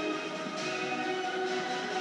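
Dramatic backing music from a television, recorded off the TV speaker: sustained chords with a heavy hit about once a second.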